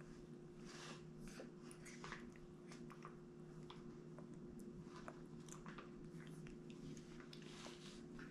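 A baby's faint chewing and lip-smacking on a mouthful of soft durian: scattered small wet clicks and smacks over a steady low hum.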